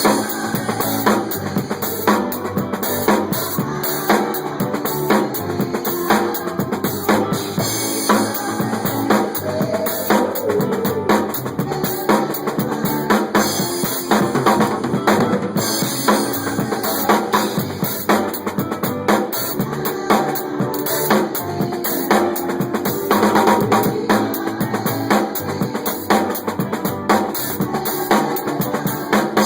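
Drum kit played steadily, with bass drum, snare and rimshot strokes, over music with sustained pitched notes.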